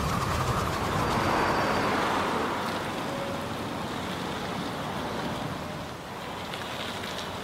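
Steady outdoor background noise, a rushing hiss with a low rumble underneath, easing off a little after the first couple of seconds.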